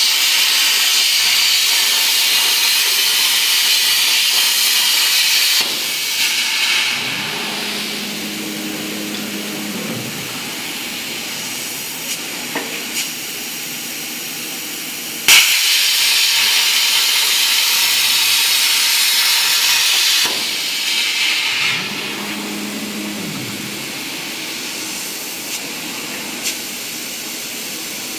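CNC plasma cutter's arc hissing loudly as it cuts steel plate, cutting out about six seconds in. A quieter hiss with a low hum follows. About fifteen seconds in the arc strikes again with a sharp crack and cuts for about five seconds before stopping again.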